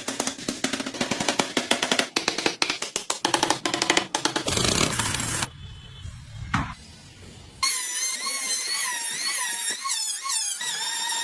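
Music with a fast drum beat, breaking off for a moment, then a high warbling tone that wavers up and down in pitch near the end.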